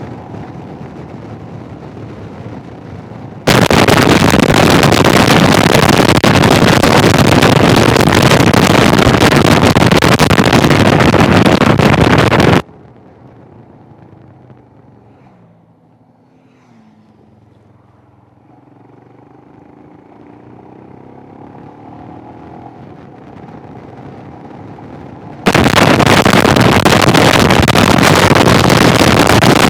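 Loud wind noise on a motorcycle helmet intercom's microphone switches on abruptly about three seconds in, stops suddenly about nine seconds later, and cuts back in near the end. This is the fault where Garmin sat-nav prompts switch the Sena 10C Evo over to its fully open external microphone. In the quieter stretch between, the Royal Enfield Himalayan's single-cylinder engine is heard faintly, its pitch sliding.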